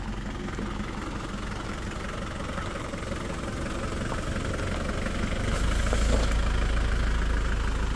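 Engine of a homemade open-cab farm truck running steadily as the truck drives up and past. The low rumble grows louder and is loudest from about five and a half seconds in, as the truck comes alongside.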